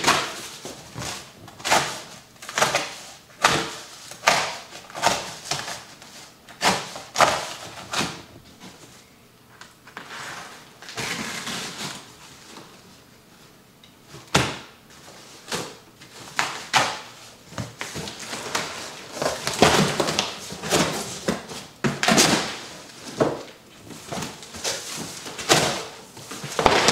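Large cardboard shipping box being ripped open by hand: a string of sharp rips and cracks of heavy cardboard, with longer tearing stretches about halfway through and again near the end.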